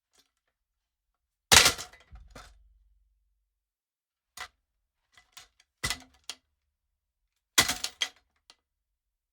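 Cartoon-style crash sound effect: a loud sudden crash followed by a short trail of clattering, clanking hits, heard twice about six seconds apart, with a few scattered small clinks in between.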